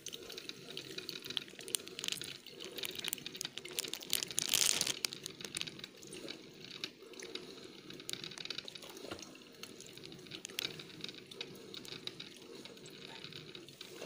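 Electric drip coffee maker brewing: hot water hissing and sputtering with many small crackling pops as coffee drips into the glass carafe, swelling louder for a moment about four to five seconds in.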